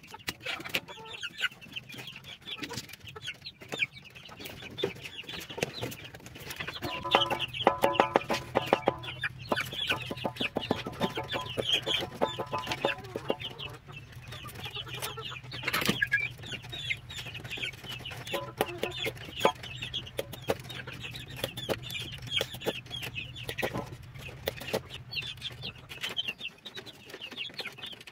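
Chickens clucking, over a dense patter of short, high calls and clicks, with one sharp knock about sixteen seconds in.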